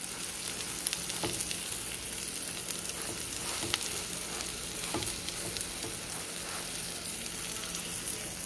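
Beaten egg with green peppers and onions sizzling steadily in a frying pan, with scattered small pops and crackles.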